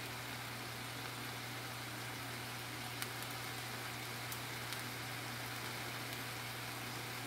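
Vegetables frying in oil in a stainless steel skillet: a steady sizzling hiss with a few faint pops, over a low steady hum.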